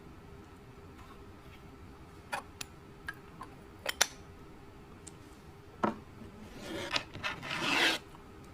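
Sharp clicks and taps of small hard objects being handled, several singly and in pairs, then a crackling rub lasting about a second and a half near the end.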